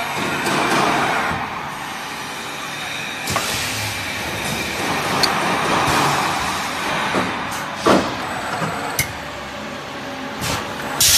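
Cheese-stick thermoforming vacuum packaging machine running: a steady mechanical noise, broken by a few sharp knocks from its moving parts.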